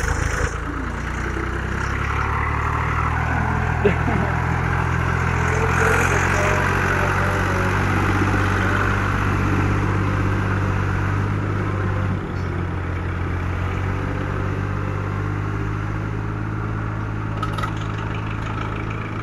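Fiat 480 tractor's three-cylinder diesel engine running steadily under load as it drags a tine cultivator through flooded mud.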